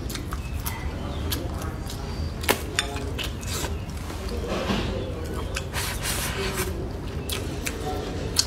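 Close-miked eating sounds: chewing, with sharp clicks of wooden chopsticks against a ceramic bowl scattered throughout, two of them louder, about two and a half seconds in and near the end. A steady low rumble runs underneath.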